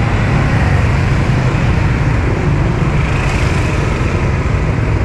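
Steady engine and road noise from motorbike street traffic, heard from a scooter being ridden.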